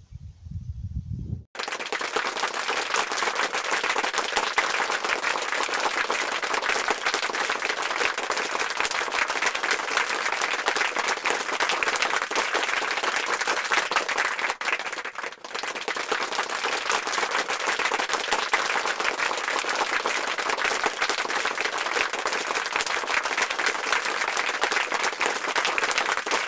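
Dense, steady applause and clapping from many hands, starting suddenly about a second and a half in, with a brief dip around the middle.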